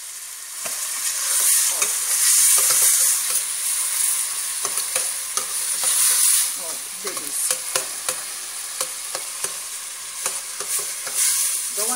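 Chopped onion, garlic and green pepper sizzling in oil in a stainless steel pot, with a metal spoon stirring and scraping against the pan in frequent small clicks. The sizzle is loudest from about one to six seconds in.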